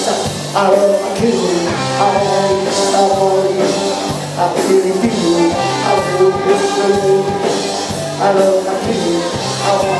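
Live rock and roll band playing loud: a man singing into a microphone over electric guitar, with a steady beat.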